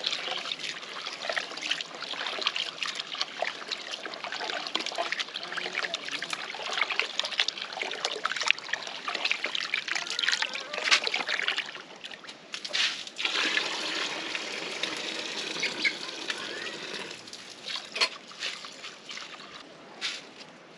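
Tap water running into an aluminium bowl of rice while a hand swishes and rinses the grains, with many small splashes and sloshes. A few sharp knocks come near the end.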